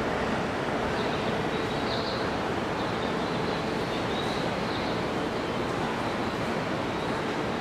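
Steady, even noise of a railway platform with a train standing or creeping in, with faint, brief high chirps over it now and then.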